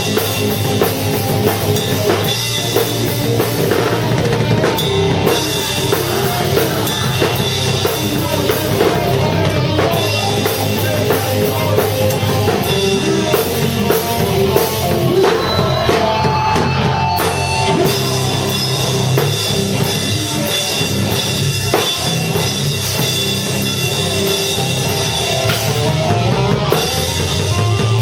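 Live rock band playing, with the drum kit and bass drum prominent.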